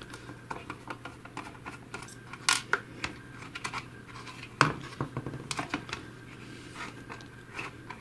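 Small screwdriver unscrewing the screws of a plastic robot-vacuum dust container, with light scraping and scattered sharp clicks of plastic and small screws.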